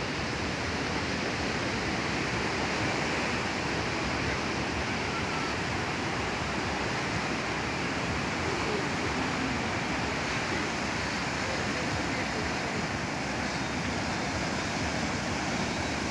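Sea surf breaking and washing onto a pebble-and-sand beach: a steady, unbroken rush of waves.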